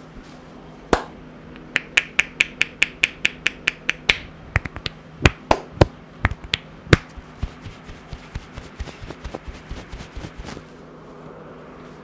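Hair cracking during a head massage: tufts of scalp hair pulled taut and snapped between the fingers, making sharp cracks. One comes about a second in, then a quick even run of about five a second, then louder uneven snaps that thin out into fainter clicks before stopping near the end.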